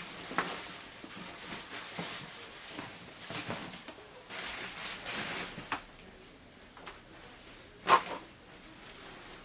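Climbing gear being handled and sorted: soft rustling and small clicks, with one sharp, louder clack about eight seconds in.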